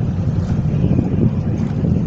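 Steady wind buffeting the microphone on a moving boat, over water rushing and splashing along the hull.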